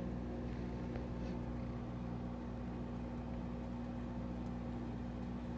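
Microwave oven running with bacon inside: a steady low hum with a buzzing tone, which cuts off suddenly just after a click near the end.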